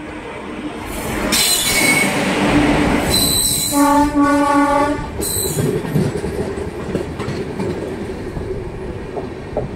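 Train running on the rails and growing louder, with short high-pitched wheel squeals and one horn blast of about a second, about four seconds in. A steady rumble of wheels on the track follows.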